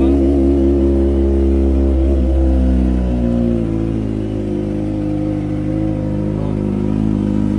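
Kawasaki 250cc motorcycle engine idling steadily and smoothly just after a cold start, not yet warmed up. Its pitch wavers briefly two to three seconds in, then settles.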